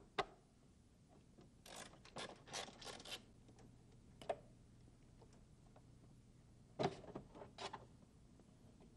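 Faint clicks and scrapes of plastic dash parts being handled as a Mercedes W210's glove box is worked loose and lifted out: a sharp click just after the start, a run of scraping rubs about two to three seconds in, and another cluster of knocks and scrapes around seven seconds in.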